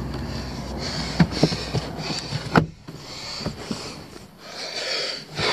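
Power-folding side mirror motor of a 2018 Ford F-250 running with a low hum, then stopping with a knock about two and a half seconds in. Clicks and handling rustle follow.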